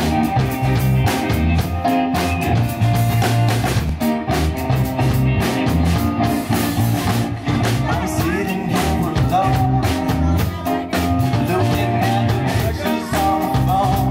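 A small rock band playing live on stage: electric guitar, bass and drums with a steady driving beat.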